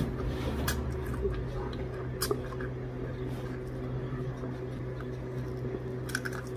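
Close mouth sounds of someone eating shell-on shrimp: chewing and sucking at the shell and fingers, with a few sharp smacks or crunches, over a steady low hum.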